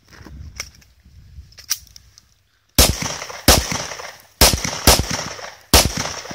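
Semi-automatic pistol fired at close range in quick pairs: six loud shots in three pairs, starting about three seconds in, each pair about half a second apart. A few fainter cracks come before them.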